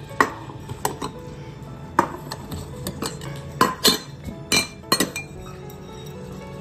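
Small metal cat-food dishes clinking as they are set down on a wooden table among the feeding cats: about ten sharp, briefly ringing clinks, coming thickest a little past the middle, over soft background music.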